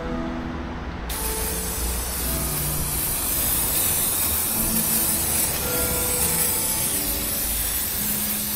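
Aerosol cleaner sprayed from a can in one long steady hiss that starts suddenly about a second in and keeps going, with soft background music underneath.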